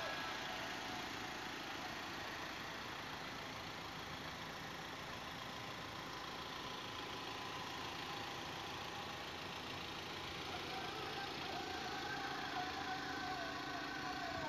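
Ford Transit tipper truck's engine idling steadily.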